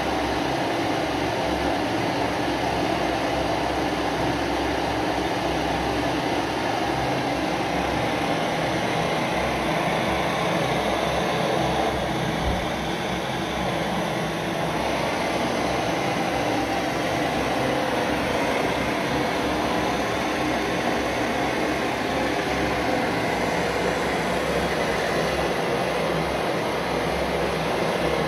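Optimus 22B two-burner pressurized stove burning white gas with both burners lit, giving a steady, even hiss that does not change.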